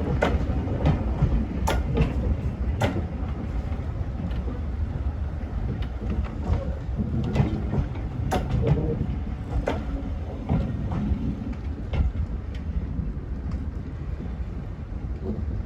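Heritage railway train running along the line: a steady low rumble with scattered sharp clicks and knocks from the wheels.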